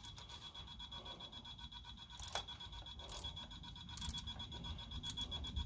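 Magneto timing box giving a steady, faint, high-pitched buzz, with a few scattered clicks from a quarter-inch drive wrench as the magneto's mounting nuts are tightened.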